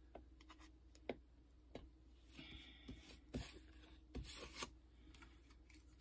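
Faint rustling, sliding and light taps of round tarot cards being moved and picked up on a tabletop, with a few soft scrapes near the middle.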